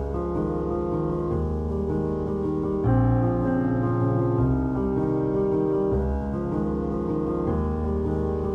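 Background piano music, slow sustained chords changing about every second and a half.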